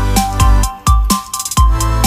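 Background electronic music with a steady beat, dropping out briefly about halfway through.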